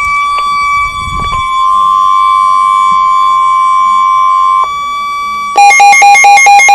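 Emergency Alert System alert tones: a loud, steady single tone near 1 kHz, like the 1050 Hz weather-radio alert tone, holds for about four and a half seconds and then drops away. About a second later comes a loud, fast, chattering burst of switching tones, like an alert's digital data header.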